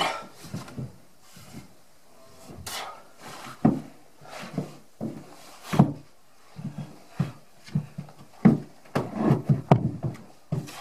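Irregular wooden knocks, thuds and short scrapes as a large peeled log is shoved and skidded by hand along the top log of a log wall, loudest around the middle and in a cluster near the end.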